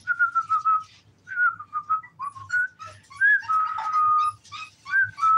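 A person whistling: a run of short notes around one pitch, some sliding up or down, then a long held note about three and a half seconds in and another starting near the end. Faint clicks and scuffles sound underneath.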